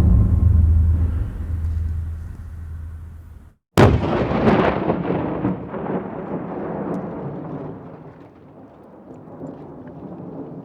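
The low rumble of one explosion fades out. After a brief silence, a second explosion goes off suddenly about four seconds in, and its rolling rumble and crackle die away slowly over several seconds.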